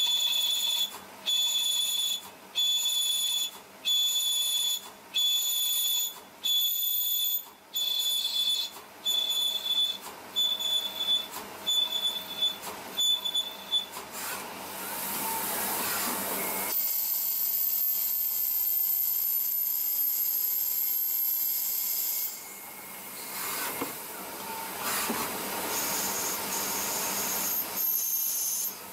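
CNC lathe boring the inside of a turning brass bushing: a high-pitched cutting whine comes in short repeated bursts, about one a second, for the first half. It then gives way to a steady hiss of coolant spray and the machine running, with a thin high whine for several seconds in the middle.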